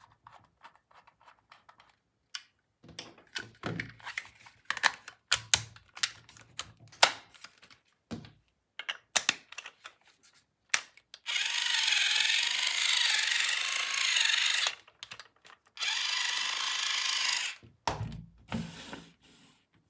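Toy power tool switched on twice, each time a buzzing whir with a wavering pitch lasting a few seconds. Before it come plastic clicks and handling knocks, and after it a couple of low thumps.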